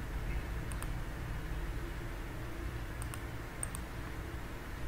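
Three soft computer mouse clicks, each a quick double tick, over a steady low hum.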